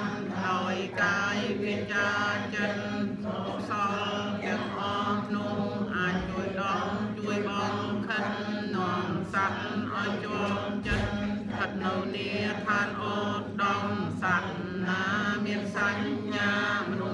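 A congregation of men and women chanting Buddhist prayers together in unison, a steady, near-monotone recitation held on one low pitch. A soft low bump sounds about eleven seconds in.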